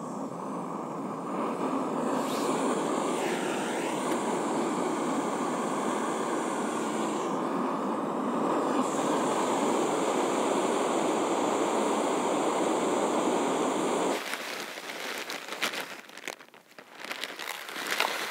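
Backpacking gas canister stove burning under a kettle, a steady rushing noise that grows louder about a second and a half in. It cuts off suddenly about fourteen seconds in, followed by clicks, clatter and rustling as camp dishes and a food pouch are handled.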